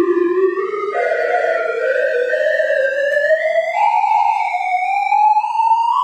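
Synthesized sorting-algorithm sonification ("Sound of Sorting"): a single electronic tone gliding steadily upward in pitch, with small jumps up about a second in and near four seconds. Its pitch follows the values of the items the algorithm is accessing.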